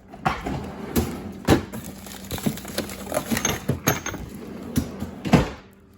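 Irregular knocks, clicks and clatter, as of parts and tools being handled, with the two loudest knocks about one and a half seconds in and near the end.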